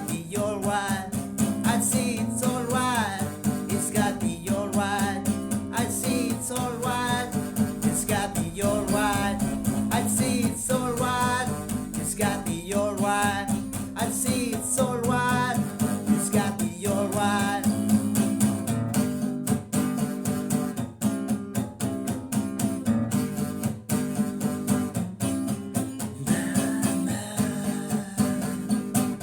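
Guitar-led space rock music, an instrumental stretch with a melodic line that bends up and down in pitch over the band for the first twenty seconds or so.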